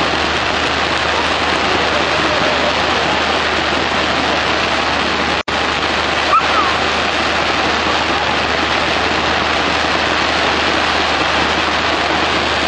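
Firework fountains spraying sparks: a steady, loud hiss that drops out for an instant about five and a half seconds in.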